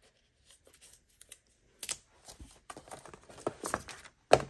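Paper and plastic packaging of craft papers rustling and crinkling as they are handled, in scattered short crackles that begin about two seconds in, with one sharp tap near the end.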